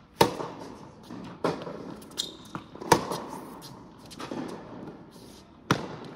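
Tennis ball being struck by rackets and bouncing on an indoor hard court: four sharp pops spread over several seconds, each echoing in the large hall. The loudest comes about three seconds in.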